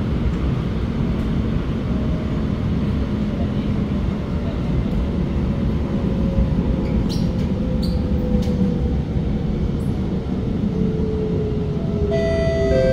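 Steady rumble and hiss of an SMRT R151 metro train running, heard from inside the car, with a faint motor whine falling slowly in pitch as the train slows for the next station. A few light clicks come partway through, and a chime-like tone begins near the end.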